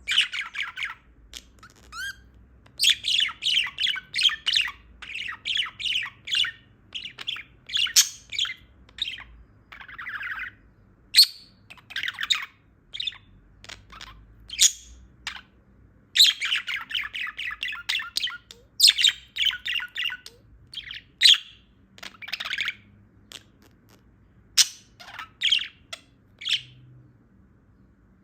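Female budgerigar chirping and chattering: quick runs of short, high chirps in bursts of a second or two, broken by short pauses and single sharp calls.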